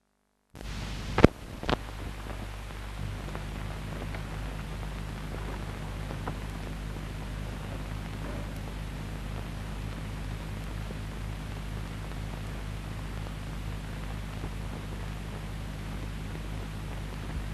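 Steady hiss and low mains hum from an old film soundtrack with no narration. Two sharp clicks come about a second in.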